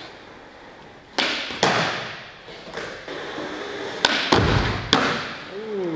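Skateboard wheels rolling on a concrete floor, broken by several sharp clacks and thuds as the board is popped and hits a wooden ledge. The heaviest, deepest thud comes a little past four seconds in. The board is a Capsule prototype deck made without maple wood.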